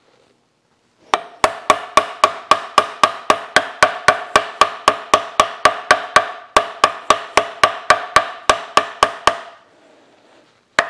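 Hammer blows driving a tight, hand-fitted new jaw onto the jaw of a large Parker No. 6 bench vise. The blows come at a steady rate of about five a second for about eight seconds, each one ringing, and start again briefly near the end.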